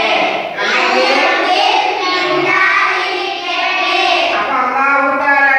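A group of young boys chanting a reading lesson aloud together in a sing-song voice.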